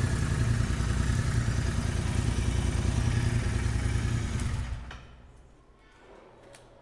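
Royal Enfield Interceptor 650's parallel-twin engine idling steadily through Powerage short slip-on exhausts, echoing in a basement, then stopping about five seconds in.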